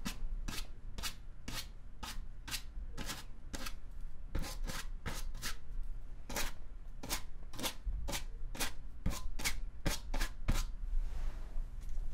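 A paintbrush making short, quick strokes on acrylic canvas, a scratchy brushing sound about twice a second, stopping about ten seconds in.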